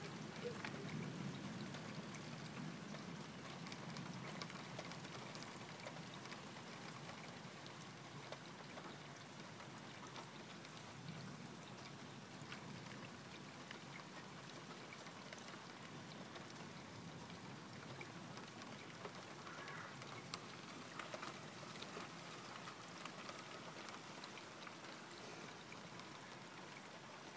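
Steady rainfall during a thunderstorm, with scattered ticks of individual drops striking a surface.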